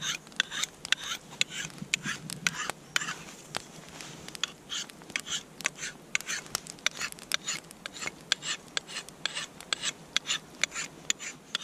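A pocket sharpening stone is stroked back and forth along the edge of a small axe, honing it. It makes quick rasping scrapes with light clicks, a few strokes a second, all the way through.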